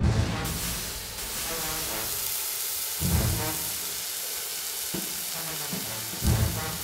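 Loud, steady sizzle of food frying in a hot wok, layered with theme music: short melodic phrases and a heavy low hit three times, at the start, about three seconds in and near the end.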